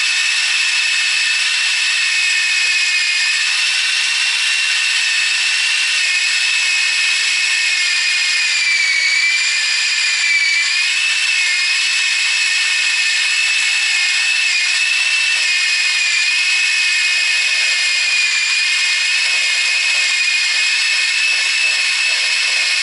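Electric drill driving a homemade drill-powered chicken plucker, defeathering a scalded Cornish cross meat bird: a steady high whine that dips slightly in pitch about ten seconds in, as if briefly loaded.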